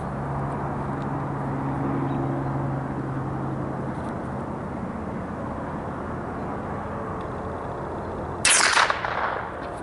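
A single .22 rifle shot about eight and a half seconds in: a sharp crack with a short decaying tail, with no explosion after it. Before it, steady outdoor background noise with a low hum that fades out about four seconds in.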